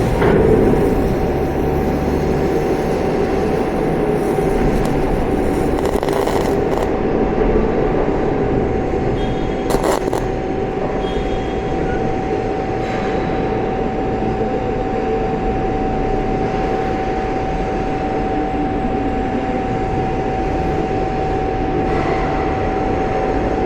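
MIG (GMAW) welding arc with solid wire, running a fillet weld: a steady, even noise with a constant whine underneath that holds throughout.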